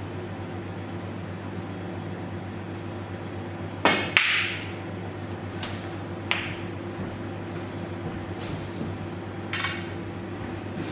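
Snooker shot: the cue tip strikes the cue ball and a fraction of a second later the cue ball clacks into a red, about four seconds in. A few lighter clicks of snooker balls follow as the balls are gathered, over a steady low hum in the room.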